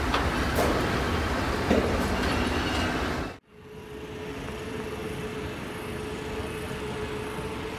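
Electric locomotive and rail-yard noise: a loud steady rumble with a few clanks. About three and a half seconds in the sound cuts off abruptly and gives way to a quieter steady hum carrying one constant mid-pitched tone.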